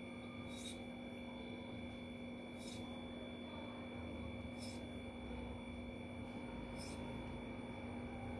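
Soft high ticks about every two seconds as a kitchen knife slices through a log of dough and meets the marble board. Underneath runs a faint, steady electrical hum made of several constant tones.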